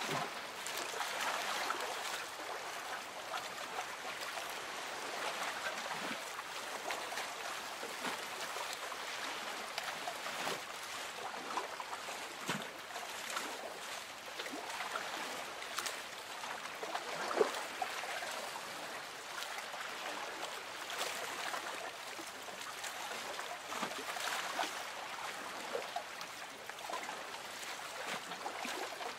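Lake water gently lapping and trickling against a small boat's hull, a steady wash with small splashes here and there.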